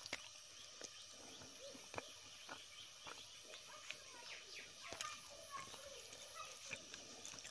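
Dal poured from a steel bowl onto rice on a banana leaf. The bowl is scraped and tapped, then the wet rice is mixed by hand, giving soft wet squelches and scattered small clicks.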